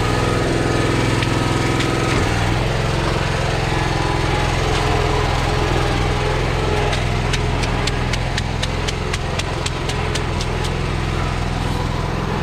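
Small engine running steadily, with a run of sharp ticks, about three or four a second, in the later part.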